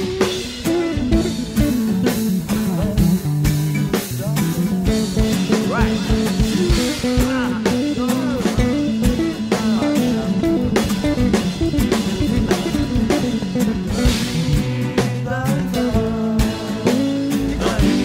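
Instrumental rock passage: guitar lines with bent and sliding notes over bass and a drum kit keeping a steady beat.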